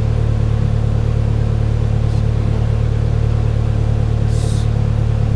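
Polaris Slingshot engine idling steadily with a low, even hum.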